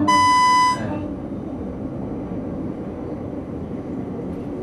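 A loud, buzzy electronic beep on one high pitch, lasting under a second and cutting off sharply, followed by a steady low rumbling noise.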